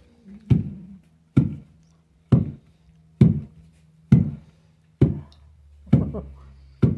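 Wooden pestle pounding roasted peanuts and corn flour in a wooden mortar, a dull thud repeated evenly about once a second, eight strokes.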